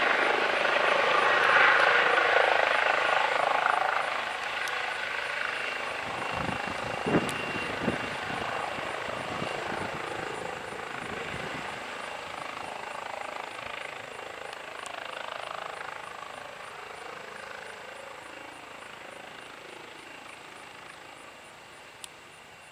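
Airbus H135 (Eurocopter EC135) twin-turbine helicopter hovering close by and settling onto its skids. Its rotor and engine sound grows steadily quieter once it is down, with the rotor still turning. A couple of short low thumps come about seven seconds in.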